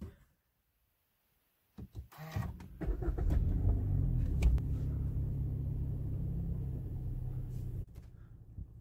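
Cold start of a Suzuki Swift's K12C four-cylinder engine, heard from inside the cabin: a few clicks, a brief crank, then the engine catches about three seconds in, flares and settles into a steady fast cold idle. It drops sharply in level about eight seconds in.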